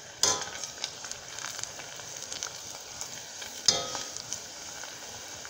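Hot oil sizzling and crackling steadily as a breaded cheese stick deep-fries in a stainless steel saucepan. Two sharp clinks with a short ring, about a quarter second in and again near four seconds, from metal tongs against the pan.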